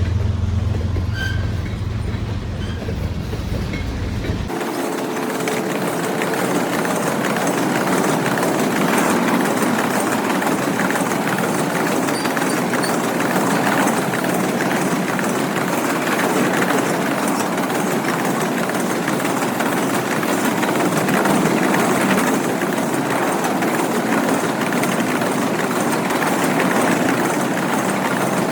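A low rumble for about the first four seconds, which cuts off abruptly. Then a CSX freight train's cars roll steadily past, wheels clicking over the rail joints.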